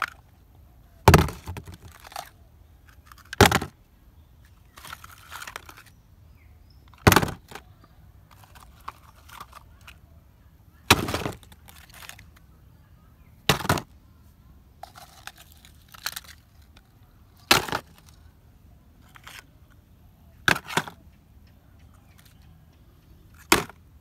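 Small die-cast metal toy vehicles being dropped one by one into a plastic tub. There are about ten sharp clatters a few seconds apart, with lighter rattles of metal on metal between them.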